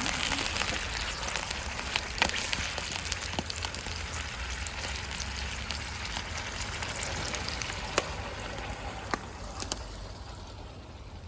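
Chicken frying in hot oil in a karahi: a steady sizzle with scattered sharp pops, dying down a little near the end.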